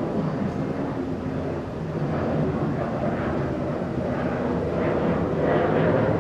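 New York City subway train running, a steady loud rumble with a low hum, with faint rhythmic clacks coming in from about halfway through.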